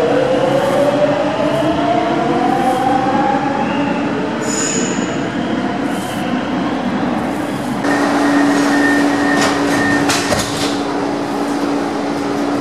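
Rome Metro Line C train at a station: its electric motor whine glides upward in pitch over the first few seconds. About two-thirds of the way through, a steady tone sets in and holds, with a few clicks.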